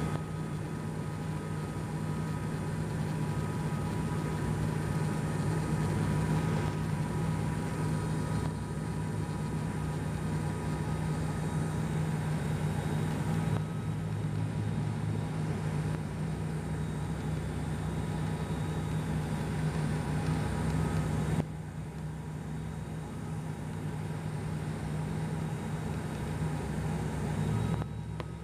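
Cabin noise of an ATR 72-200 turboprop on final approach: a steady propeller drone with a hum and a faint whine over it. The noise steps down suddenly about 21 seconds in and again near the end, as power comes back for the landing.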